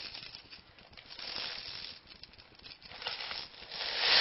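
Plastic airsoft BBs pattering and rattling into a hollow plastic Easter egg shell as it is filled, in irregular spurts that grow denser near the end.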